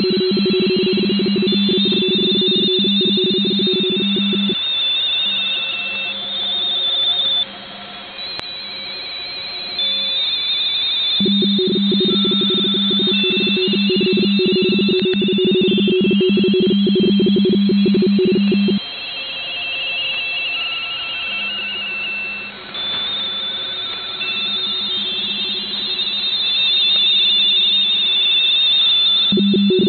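Several amateur-radio RTTY signals heard together from a shortwave receiver on the 20-metre band: overlapping two-tone teleprinter warbles at different pitches, the 45.45-baud keying of stations calling and exchanging in a RTTY contest. One strong low-pitched signal sounds for the first four seconds, drops out, returns for about eight seconds in the middle, and comes back near the end.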